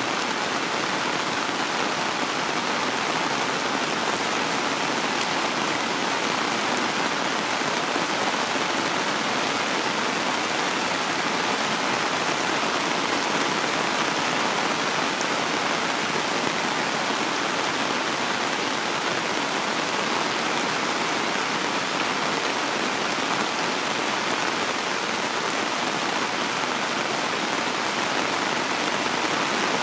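Heavy rain falling in a steady, unbroken downpour onto wet concrete and surrounding plants.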